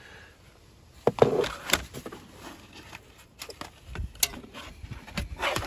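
Hard plastic interior door trim piece being handled after being pulled free. It scrapes and knocks against the door panel, with a cluster of clicks and knocks about a second in and single sharp knocks later.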